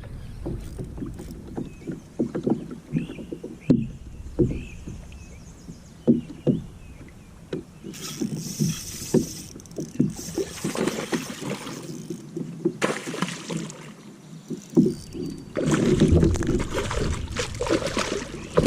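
Sounds of a kayak on a river: irregular knocks and bumps on the hull with water sloshing and splashing, louder and busier near the end.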